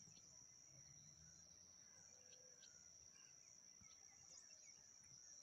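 Faint outdoor ambience: a steady high-pitched insect drone, with a few short bird chirps over it.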